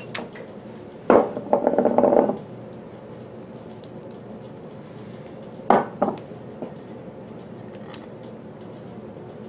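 Glass and ceramic bowls knocking and scraping against the rim of a large glass mixing bowl as ingredients are tipped in. A scrape lasting about a second comes a second in, then two sharp clinks in quick succession about six seconds in.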